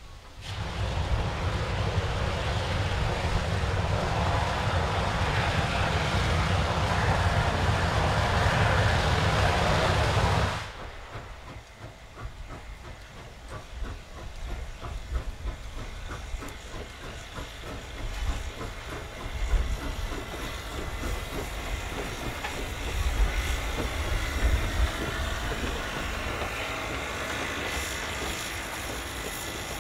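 Frisco 1630, a 2-10-0 steam locomotive, hissing loudly with steam over a heavy low rumble for about ten seconds. The hiss cuts off suddenly, and a quieter rumble follows as the locomotive works past, with irregular low thumps.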